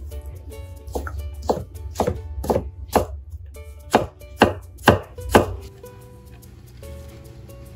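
Global chef's knife chopping carrot into thin strips on a wooden cutting board: about ten sharp chops, roughly two a second, that stop about five and a half seconds in.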